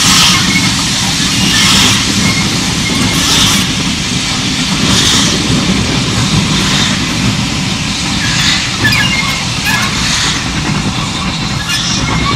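BR Standard Class 4MT 2-6-4 tank steam locomotive working a passenger train: its exhaust beats rise and fall in a regular rhythm over the steady rumble of the engine and coaches on the rails.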